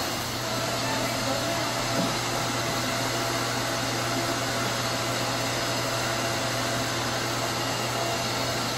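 Steady whir of an electric fan or blower with a constant low hum underneath.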